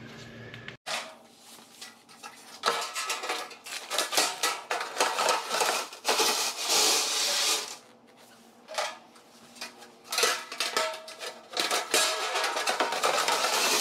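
Thin corrugated galvanized steel wall panel rattling, flexing and scraping as it is handled and pressed into place against the wall, with a faint metallic ringing; it comes in two long stretches with a quieter gap around the middle.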